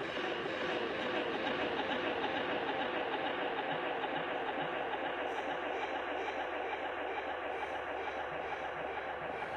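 Live electronic sound score: a dense, steady noise texture with a fast, evenly repeating pulse running through it.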